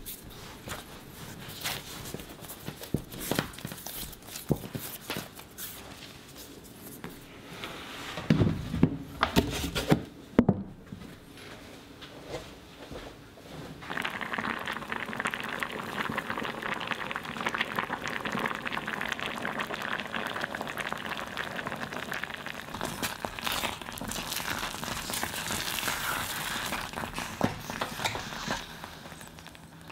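Dough being kneaded and pressed on a wooden cutting board, with scattered soft handling sounds and a few heavier thuds against the board about eight to ten seconds in. Then a pot of adzuki beans bubbling at a steady simmer, a dense crackling that eases near the end as the beans are stirred.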